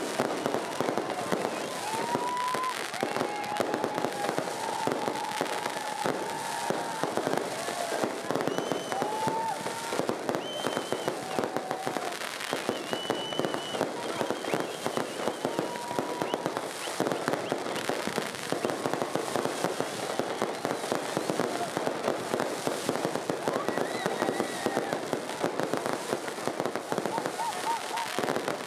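Aerial fireworks bursting and crackling in a dense, continuous run of bangs, with the voices of a large crowd mixed in underneath.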